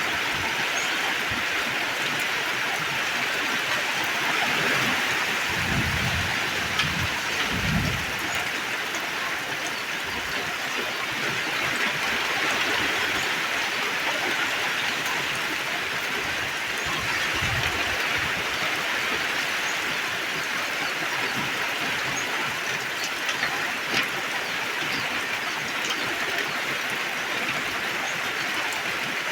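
Torrential rain falling in a steady, even hiss. A few brief low rumbles come about six, eight and seventeen seconds in, and scattered sharp drop taps run through it.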